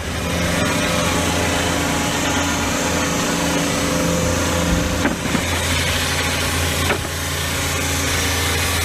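Petrol engine of a portable band sawmill running steadily, with a couple of brief knocks about five and seven seconds in.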